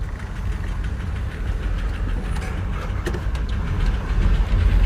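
Steady low rumble of a motor vehicle on the move, engine and road noise, growing slightly louder near the end.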